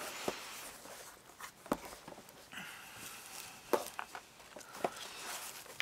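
A handmade scrapbook album, covered in lace and paper, being handled and turned over: rustling, with a few light taps and clicks as the book is touched and shifted.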